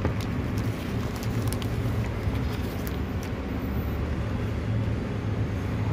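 Steady road-traffic rumble from the street outside, with a few light crackles of a plastic bag being handled.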